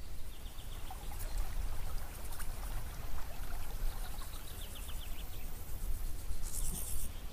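Outdoor nature ambience of birds and insects. Two quick trains of high chirps, then a short high insect buzz near the end, over a steady low rumble.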